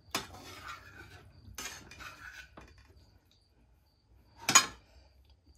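Metal serving fork scraping and scooping fried meat in a metal pan, with clinks of metal on metal. A single sharp clank about four and a half seconds in is the loudest sound.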